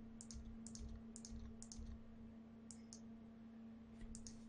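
Computer mouse clicking about six times, each click a quick press-and-release pair, as texture tags are selected and deleted. A faint steady low hum runs underneath.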